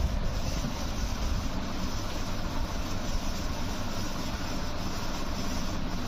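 Steady air noise buffeting the microphone: an even rushing hiss over a low, fluttering rumble.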